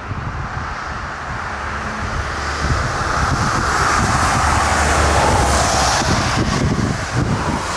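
Airbus A380 jet airliner on final approach, its four engines making a steady roar that grows louder and peaks about five seconds in as it passes close by. Wind buffets the microphone.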